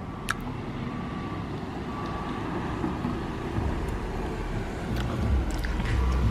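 Car pulling into a driveway and approaching, its engine and tyres growing steadily louder, with the low rumble strengthening in the second half.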